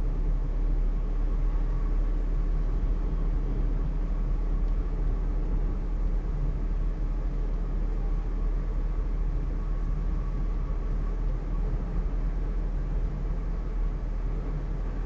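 Maruti Suzuki Alto K10 driving at about 50 km/h on a wet road, heard from inside the cabin: a steady low rumble of engine and tyre noise.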